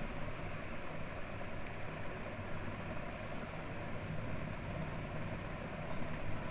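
Steady low background hum and hiss.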